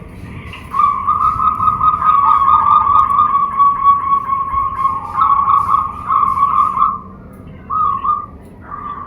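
Zebra dove (perkutut) cooing: a long trilled coo of rapid repeated notes lasting about six seconds, then a short note and the start of another coo near the end.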